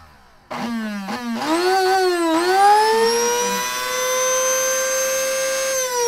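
Electric blade coffee grinder grinding coffee beans: the motor switches on suddenly about half a second in and dips in pitch several times, as if pulsed. It then settles into a steady high whine that climbs a little and levels off.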